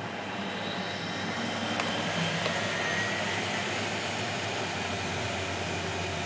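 Miele Hydromatic W734 washing machine spinning: a rushing whir that grows louder over the first two seconds, then runs steadily at speed.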